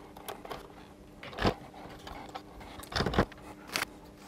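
Handling knocks and scraping as a digital microscope's screen is fitted onto its mounting arm: a clunk about one and a half seconds in, then a louder pair of knocks around three seconds and a smaller one just after.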